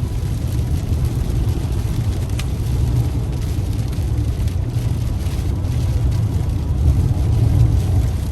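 Steady low rumble of a truck driving at highway speed, heard from inside the cab: road and wind noise that swells and eases slightly in the storm gusts.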